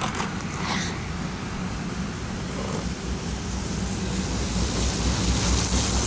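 Motor vehicle engine rumbling steadily, growing gradually louder as it draws nearer.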